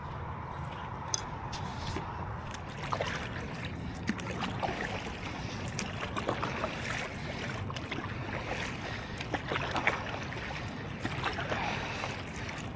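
Water splashing and trickling around an inflatable paddle board on open water, with irregular small splashes over a steady low rumble.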